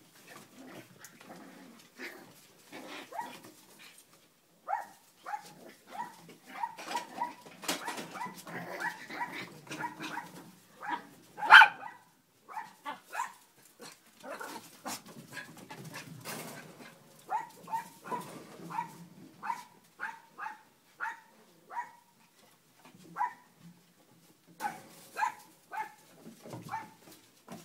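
Chinese Crested dogs barking and yipping: many short, high barks, often in quick runs, the loudest about twelve seconds in.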